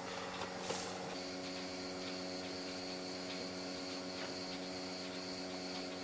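A steady machine hum made of several constant tones. A high thin whine joins it about a second in, with faint scattered ticks.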